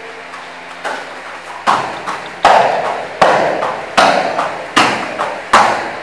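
A run of seven evenly spaced heavy thuds, about one every 0.8 seconds, each with a short ringing tail. They grow louder over the first three or four and then stay strong.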